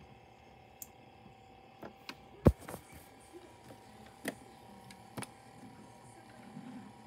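Scattered clicks and knocks as a hand handles the cables and switches around a disco-ball light, with one heavy thump about two and a half seconds in, over a faint steady hum.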